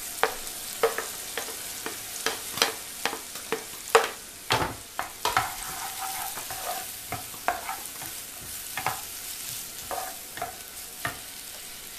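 Chopped onion, green chilli and ginger sizzling in hot oil in a frying pan while a spatula stirs them, tapping and scraping on the pan many times at an irregular pace, most often in the first half.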